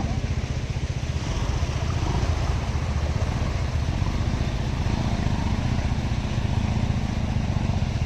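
Motorcycle engine running steadily while the bike is ridden, with an even rushing hiss over it.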